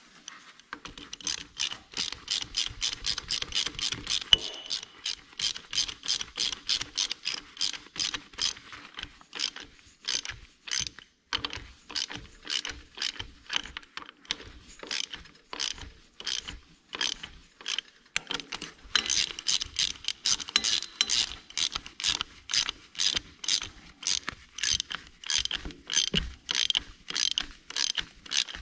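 Craftsman hand ratchet clicking at about three clicks a second, with a short break about ten seconds in, as it runs the cover bolts down on a cast-iron power steering box lid. The lid is drawing down easily onto its new O-ring.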